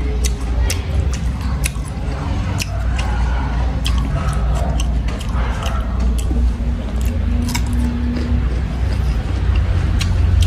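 Eating cucumber slices and rice: a run of crisp, sharp crunching clicks from biting and chewing, over a steady low rumble in the background.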